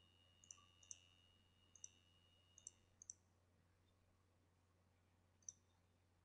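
Near silence with about six faint, scattered computer mouse clicks over a faint steady hum.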